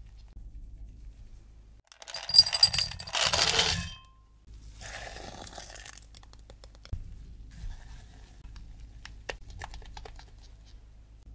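Kitchen handling noises. About two seconds in comes a loud rustling, clinking burst lasting about two seconds, the loudest sound. Later a silicone spatula stirs and scrapes inside a glass jug, giving light scattered clicks and scrapes.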